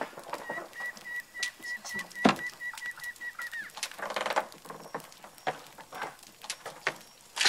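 A high, steady trilling animal call, held at one pitch with an even pulse for about three seconds, over scattered small clicks and knocks, with one sharper knock a little past two seconds in.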